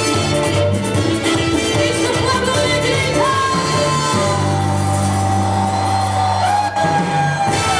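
Merengue song with a singer, who holds one long note from about three seconds in until near the end, sliding slightly lower in pitch over a steady bass line.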